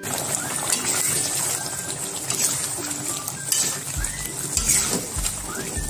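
Thick chili sauce bubbling and sizzling in a metal wok while a steel spatula stirs through it, with a few dull knocks near the end.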